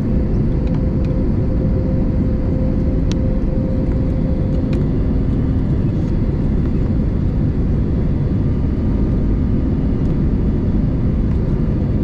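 Steady cabin noise inside an Airbus A320neo: a low rumble with a constant hum and a few faint clicks.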